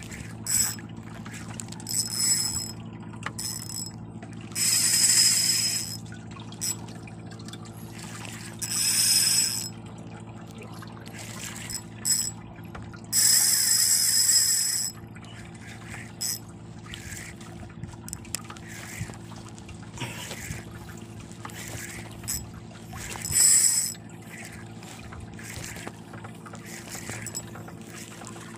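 A small fishing boat's engine running steadily at idle, a low hum, with several short bursts of hissing noise over it, the longest about 13 to 15 seconds in.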